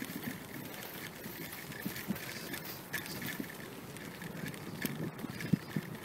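Irregular low thumps and light rattling from travel along a wooden boardwalk, with rustling noise on the microphone.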